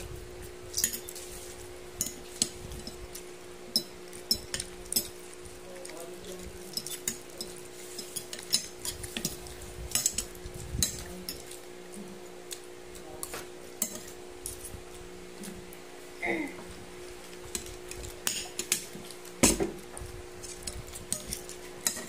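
A fork and spoon clinking and scraping against a plate while eating noodles and rice: many irregular sharp clicks, the loudest a little before the end.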